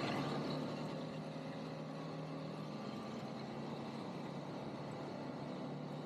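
ATV engine running steadily, with a brief louder surge right at the start that settles to an even drone.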